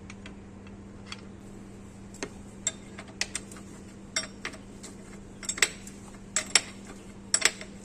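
Metal hand tools clinking and tapping against metal: irregular sharp clinks, a dozen or more, sparse at first and coming thicker and louder in the second half.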